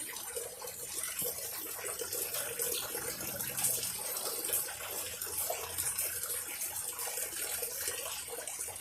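Rainwater running off a roof through the gutters: a steady trickling, splashing flow.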